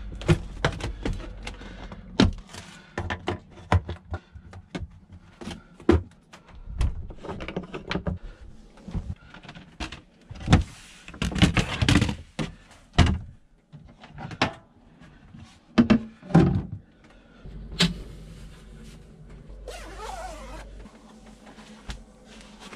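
Household things being handled and put away in a camper's wooden cupboards and shelves: a run of separate knocks, clicks and thuds of boxes and cupboard doors, with louder rustling handling in between and a short rustle near the end.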